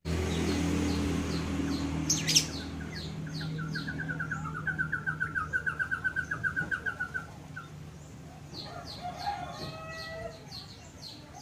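Birds calling: scattered high chirps, and a fast run of short repeated notes, about six a second and falling slightly in pitch, for about three seconds in the middle. A steady low hum lies under the first half, with a sharp click a little over two seconds in.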